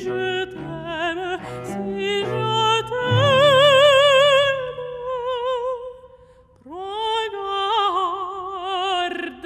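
Mezzo-soprano singing an operatic line with a wide, regular vibrato over a soft low accompaniment. About six seconds in, the voice briefly drops out, then slides up into a new, lower held note.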